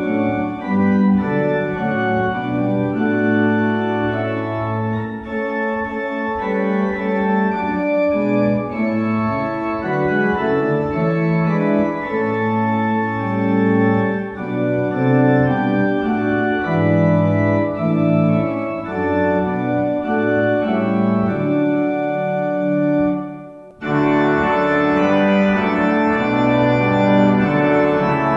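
Organ playing a hymn tune in sustained chords, with no singing. Near the end it breaks off briefly between verses, then starts the next verse with a brighter, fuller sound.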